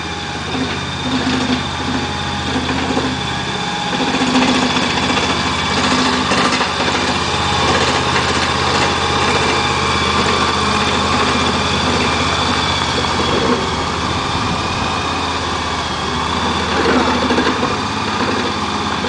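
Petrol engine of a mini skid steer loader, a 21 HP Briggs & Stratton, running steadily, with a brief change in the engine note about four seconds in.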